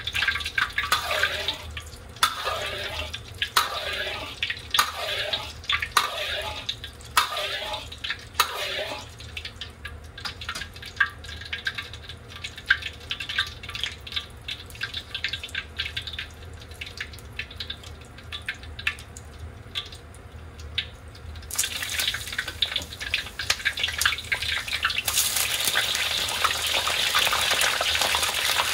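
Hot oil in a wok, crackling with scattered pops. About three-quarters of the way through, eggplant pieces go into the oil at about 180°C and it breaks into a dense, steady sizzle. The sizzle grows louder a few seconds later as more pieces go in.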